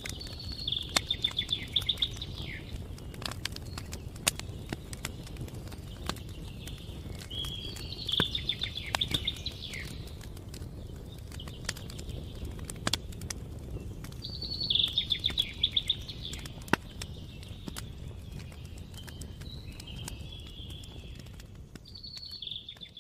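Campfire crackling with scattered sharp pops over a steady low rumble, while a songbird sings a fast trilled phrase about five times, each lasting a second or two.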